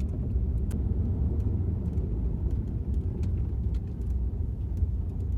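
Steady low rumble of a vehicle driving on a gravel road, heard from inside the cabin, with scattered small clicks.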